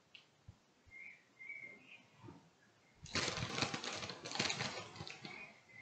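Plastic bag of packet coleslaw crinkling and rustling as the salad is tipped out of it, starting about three seconds in and lasting a couple of seconds.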